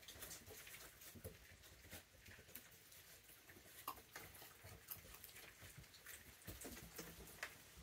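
Near silence with faint, scattered clicks and rustles from raccoons moving about and handling their food.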